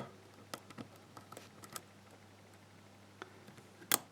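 Irregular small metallic clicks and ticks of a hook pick working the pins of a GeGe euro-profile pin-tumbler cylinder under tension, with a louder, sharper click near the end. The picker takes this for pin five being overset.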